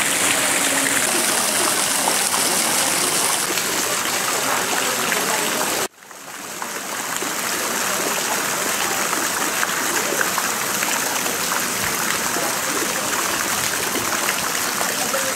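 Fountain water spilling in many thin streams and drips from the rim of a basin onto the water below, a steady splashing and trickling. About six seconds in, the sound cuts out abruptly and fades back up over a second.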